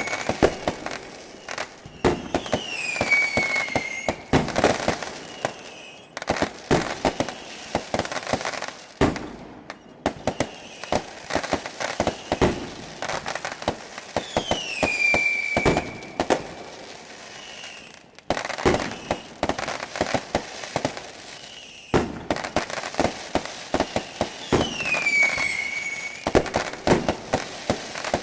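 Fireworks going off in quick succession: repeated sharp bangs and crackling, with short whistles falling in pitch every few seconds among them.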